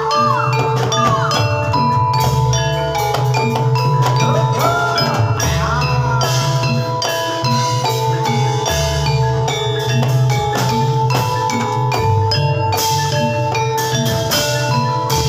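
Gamelan music for a Javanese horse trance dance: bronze metallophones ring held notes at several pitches over a repeating drum pattern. A sliding high melody line sounds in the first few seconds.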